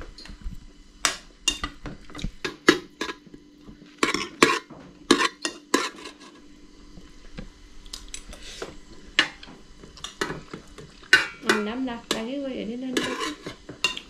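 Metal utensils clinking and scraping against dishes, in many sharp separate clinks. A voice is heard briefly near the end.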